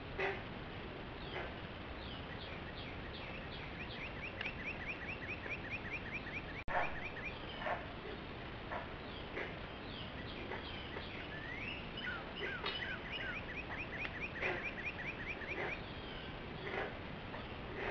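Songbirds calling in the early morning. One bird twice gives a long, fast trill of about ten notes a second, around four and thirteen seconds in, among scattered short whistled calls. A single sharp click comes just under seven seconds in.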